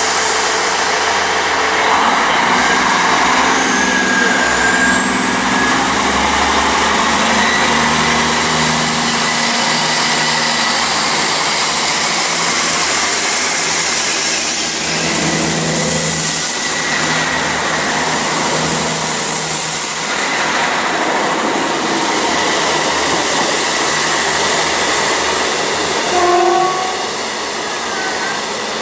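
Diesel multiple-unit trains running past under power, engine note rising and falling over the rumble of wheels on rail. A short horn toot sounds about two seconds before the end.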